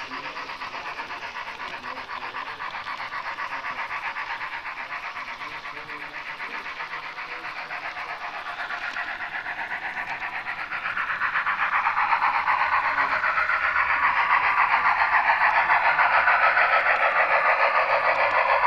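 HO-scale model train running on the layout, giving a fast, even pulsing sound that grows louder about eleven seconds in.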